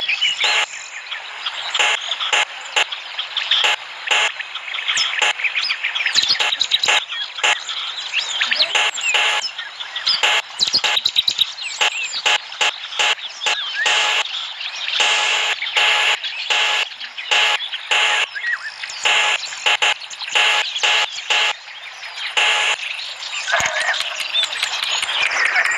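Birds chirping: many short, rapid, irregular calls overlapping throughout.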